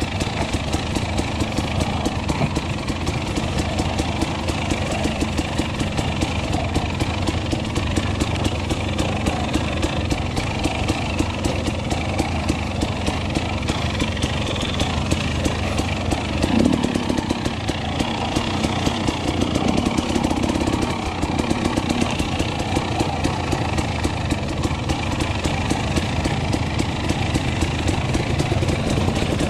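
KTM enduro dirt bike engine running steadily, with a brief louder burst a little past halfway.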